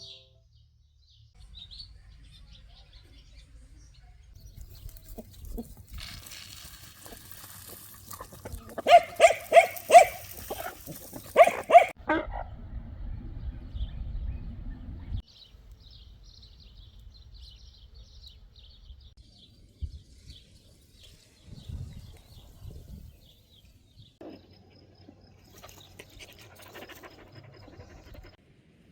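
An animal calling in two quick runs of short, loud, pitched cries, about nine and eleven seconds in, with quieter low rumbling and rustling around them.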